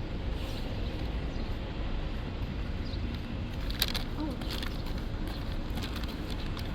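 A steady low rumbling noise with a few light clicks and knocks about four seconds in.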